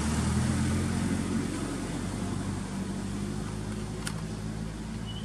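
A motor vehicle's engine droning, loudest in the first second or so and then slowly fading. A single sharp click about four seconds in.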